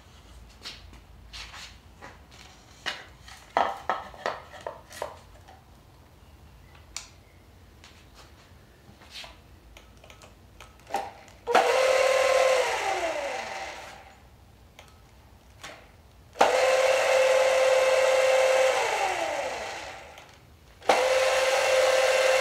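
Razor E100 electric scooter's motor and chain drive spinning the rear wheel freely on throttle tests: after some light clicks of handling, three bursts of a steady whine start suddenly at full speed, and each time power is cut the whine falls in pitch as the wheel coasts down. The repairer is checking that the throttle works and that the brake switch kills the circuit.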